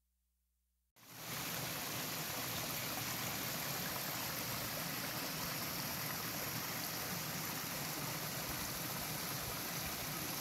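Small woodland stream running over rocks in little cascades: a steady rush of water that starts suddenly about a second in, after near silence.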